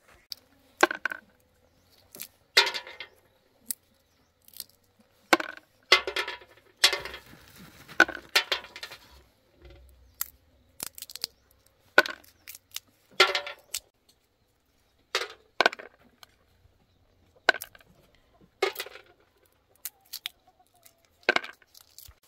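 Irregular knocks and clinks of hard objects striking, about one a second, some with a brief ring.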